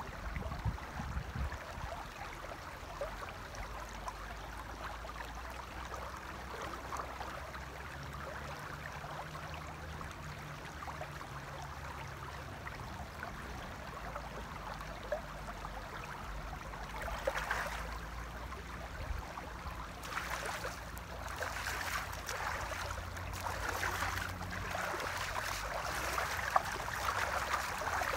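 Shallow river flowing over stones, a steady rushing. From about two-thirds of the way in, water splashes in irregular bursts as hands sweep through it.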